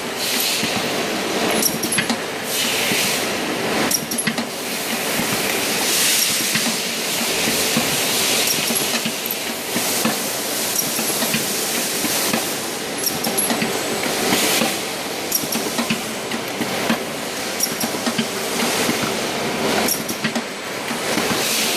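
Semi-automatic riveting machine with an indexing table running: a steady mechanical hum and clatter with a sharp clack about every two seconds.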